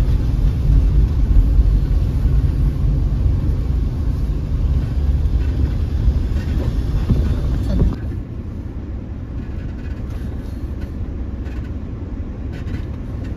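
A 4x4 SUV crawling along a dirt trail: a steady low rumble of engine and tyres, which drops in level about eight seconds in.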